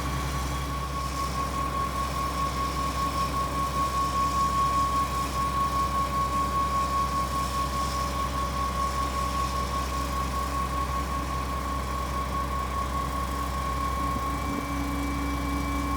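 Putzmeister 47-metre truck-mounted concrete pump running: a steady engine drone with a constant high-pitched tone over it.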